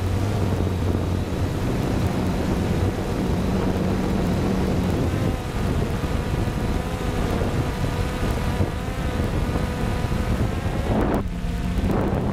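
3DR Solo quadcopter's motors and propellers running steadily, a whine of several stacked tones over rumbling wind buffeting on the onboard microphone. The higher part of the sound drops out briefly near the end.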